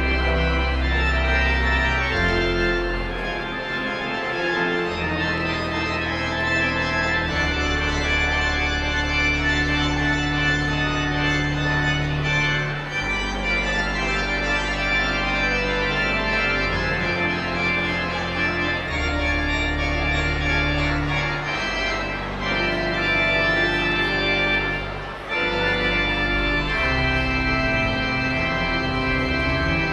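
Organ playing slow, sustained chords over deep held bass notes, the harmony changing every few seconds.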